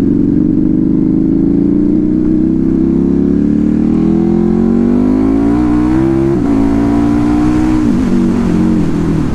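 Motorcycle with a loud exhaust accelerating, its engine note rising for about six seconds, then dropping suddenly at a gear change and holding before falling away near the end as it slows.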